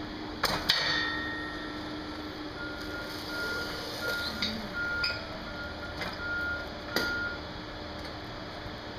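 Pallet jack working on a warehouse floor: two sharp metal clanks just under a second in and another at about seven seconds, as the forks are lowered and drawn out from under a wrapped pallet. Intermittent high beeping and a few softer knocks in between, over a steady low hum.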